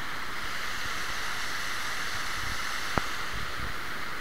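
River rapids rushing steadily over rocks, a constant water noise. A single short click about three seconds in.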